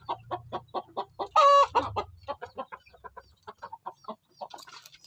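Chickens clucking in a rapid run of short notes, about eight a second, with one longer, louder call about a second and a half in.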